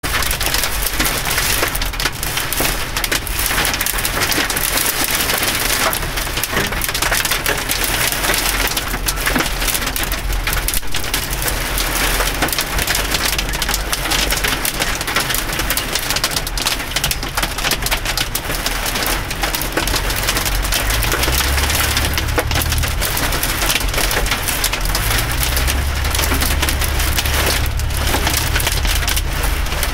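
Hail and heavy rain pelting a car's roof and windshield, heard from inside the cabin: a dense, unbroken clatter of small impacts. A low rumble joins it about two-thirds of the way in.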